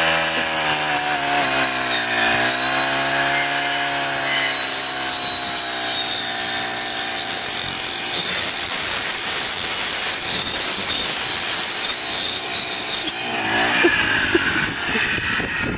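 Honda four-stroke trimmer with a saw blade running at high revs, bogging briefly about two seconds in as the blade bites into a plush talking toy bear, then a steady high whine and grinding as it cuts. About 13 seconds in the engine suddenly cuts out and spins down.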